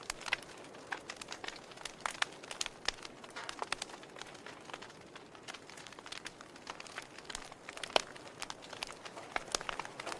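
Wood fire in a fireplace crackling, with irregular sharp pops and snaps over a soft hiss; the loudest pop comes about eight seconds in.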